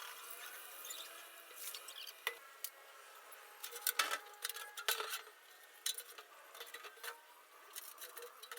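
Light metallic clicks and clinks, as of tools or small metal parts being handled, with two sharper knocks about four and five seconds in.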